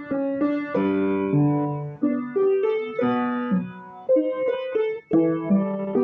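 Background music: a solo piano playing a slow, gentle melody over chords, with new notes struck about every half second.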